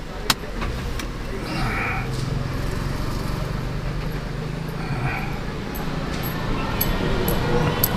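Street traffic with a vehicle engine running steadily, a few short clicks and two brief higher-pitched sounds about two and five seconds in.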